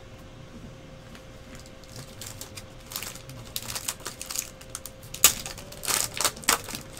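A trading-card pack's wrapper being handled and torn open: crisp crinkling and crackling clicks that start about two seconds in and grow busier, loudest near the end.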